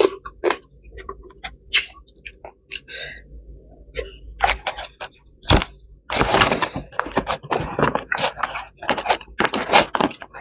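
Close-up eating sounds: fingers picking food from clear plastic takeaway containers, making many short clicks and crackles, with chewing in between. About six seconds in comes a denser stretch of crackling for about a second.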